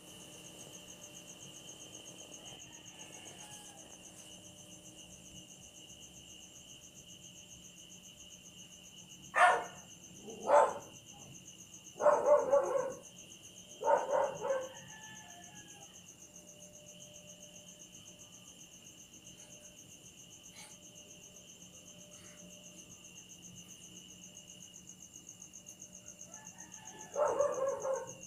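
A dog barking in short loud bursts, a few times in the middle and again near the end, over steady high-pitched insect chirping.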